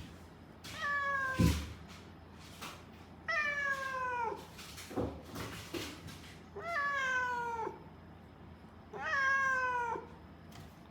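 Siamese-mix cat meowing over and over, four long drawn-out meows, each falling in pitch and spaced a couple of seconds apart: the persistent crying of a cat not settling into being kept shut in a room. A dull thump comes about a second and a half in, during the first meow.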